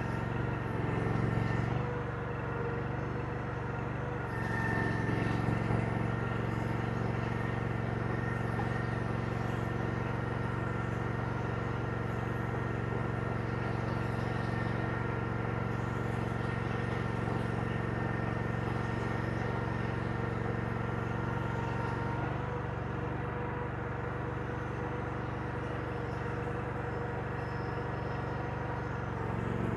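Diesel engine of a compact earthmoving machine running steadily under hydraulic load as it works dirt with its bucket. It grows louder about four seconds in and eases off a little about 22 seconds in.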